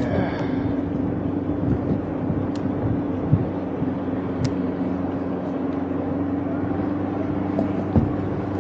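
Steady drone of a motorboat engine running on the water, a constant low hum.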